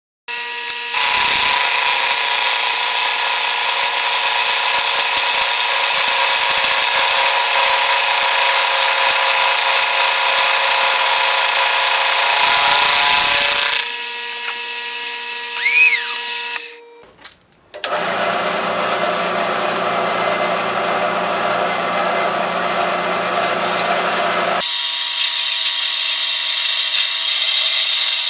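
Milling machine face-milling a steel block: a steady motor whine under the cutter's harsh cutting noise, growing louder for a moment about two-thirds of the way through. Near the end, after a brief break, a bandsaw blade runs through the hand-held steel block with a steady cutting noise.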